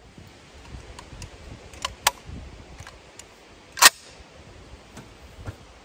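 Metallic clicks from a Remington 7400 semi-auto rifle being handled: a few light ticks, a pair of sharper clicks just before two seconds in, and one loud, sharp metallic clack about four seconds in.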